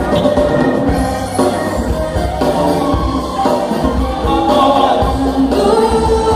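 A band playing a song with voices singing over it and a steady bass line underneath.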